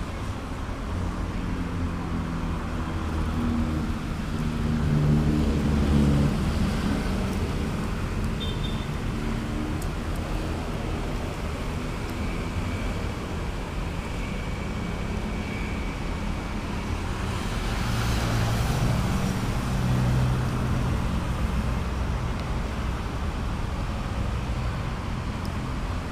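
Road traffic: motor vehicle engines running past, with the engine hum swelling as one passes about five seconds in and another about eighteen seconds in.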